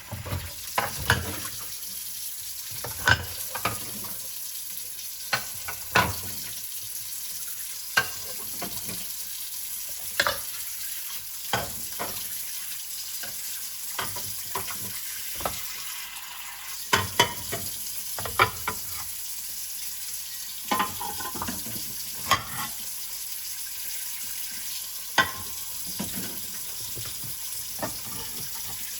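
Dishes being washed by hand in a sink: a steady hiss of scrubbing and water with frequent sharp clinks and knocks of dishes and cutlery.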